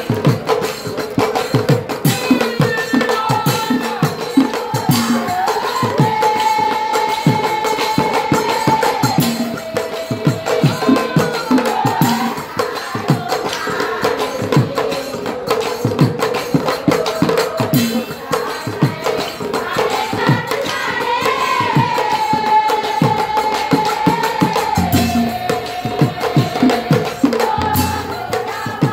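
Nagara naam: a woman singing an Assamese devotional song in long held, gliding notes over quick, steady beating of nagara drums with jingling cymbals.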